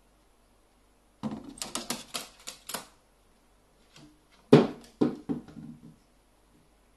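Pet carrion crow's feet and beak tapping and clattering on a wooden board: two quick runs of hard taps, the second one louder.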